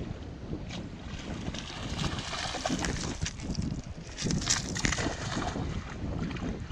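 Wind buffeting the microphone: an uneven low rumble with gusts of hiss that swell and fall.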